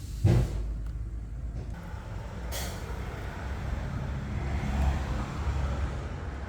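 BMW E38 740i's 4.4-litre V8 idling with a steady low rumble from under the car and its exhaust pipes. A sharp knock comes just after the start, and a short hiss of air comes about two and a half seconds in.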